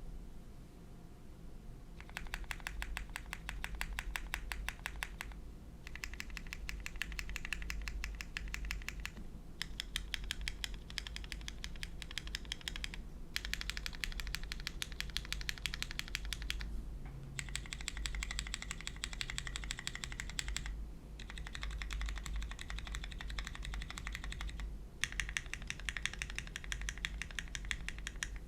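Typing on a Neo65 gasket-mount mechanical keyboard with lubed Cherry MX2A Black linear switches on a carbon fiber plate and GMK Sumi keycaps: fast runs of high-pitched, chattery keystroke clacks in bursts of a few seconds with short pauses between them, starting about two seconds in.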